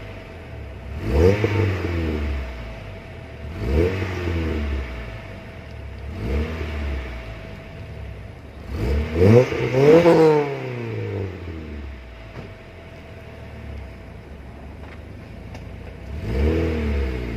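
A car engine idling and being blipped, its revs rising and falling sharply five times, with a quick double rev about halfway through.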